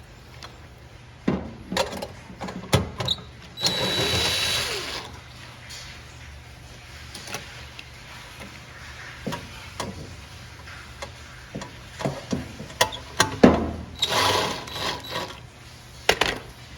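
Cordless drill-driver with a Phillips bit running in short spells, twice for about a second and a half, driving the screws that fix a washing machine's ground wire, amid clicks and knocks of metal parts and tools being handled.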